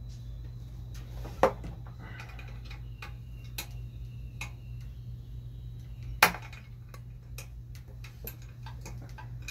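Socket wrench and metal parts clicking and clinking irregularly as bolts on a Coleman generator are worked loose, with two louder metallic clanks, about a second and a half in and again about six seconds in. A steady low hum runs underneath.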